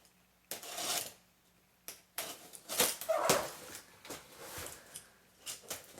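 Packaging being handled and opened: a few short bursts of rustling and scraping, around one second in, from about two to three and a half seconds, and again near the end.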